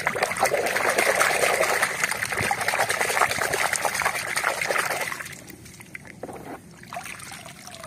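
Water splashing and sloshing in a plastic tub as a hand scrubs a muddy toy under the surface. About five seconds in the splashing stops, leaving quieter trickling and drips.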